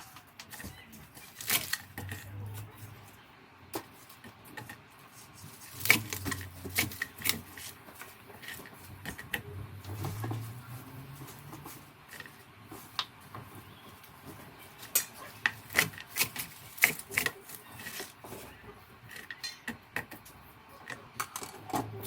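Kitchen utensils clinking and knocking against dishes and bowls in irregular, sharp taps while food is prepared.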